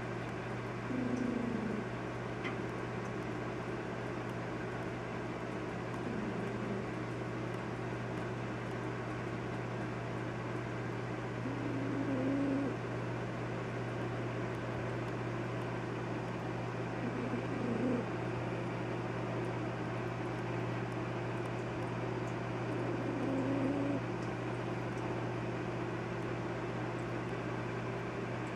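Domestic cat purring steadily close to the microphone, a continuous low rumble that swells a little louder about every five or six seconds.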